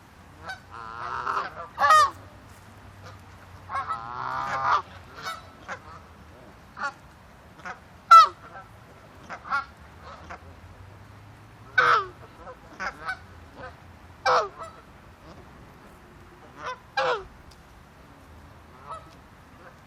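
Ducks quacking close up: single quacks at irregular intervals, with two quick runs of rapid quacks about one and about four and a half seconds in.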